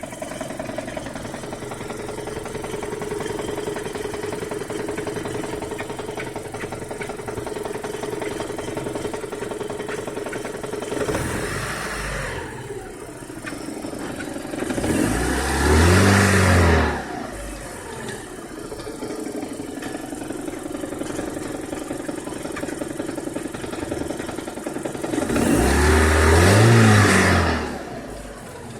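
Warm Mitsubishi 4G93 GDI 1.8-litre inline-four engine idling with a fast, even knock, the knock its owner hears at idle once the engine is warmed up. About halfway through and again near the end, it is revved briefly, its pitch rising and then falling back to idle.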